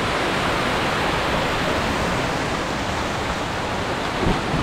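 Steady rush of water pouring down a rocky waterfall cascade, heard close by.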